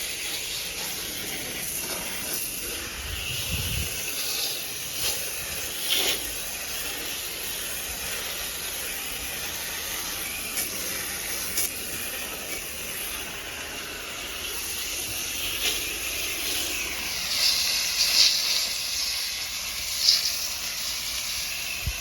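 Water spraying from a hose nozzle onto an air-conditioner condenser coil, a steady hiss, rinsing the coil cleaner off the fins. A few brief louder spurts come near the end.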